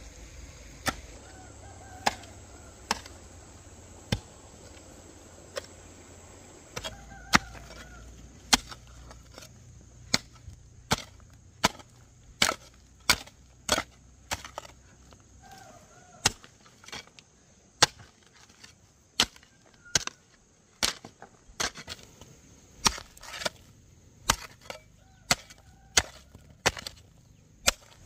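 A hoe chopping into hard, stony soil, one blow after another: about one blow a second at first, quickening to roughly one and a half a second from about ten seconds in.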